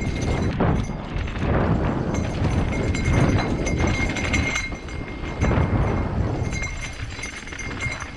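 Mountain bike rolling down a rocky dirt singletrack: tyres crunching over dirt and loose stones, with the bike rattling over the bumps and a rough, uneven rush of noise.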